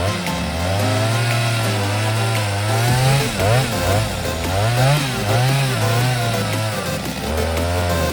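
Chainsaw engine running and revving, its pitch rising and falling again and again.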